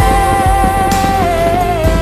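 Background music: a song with a long held melody note that steps down in pitch over steady low accompaniment.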